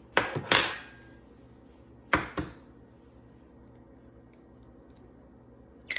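An egg being cracked against a bowl: a few sharp taps and knocks in the first second, then two more about two seconds in.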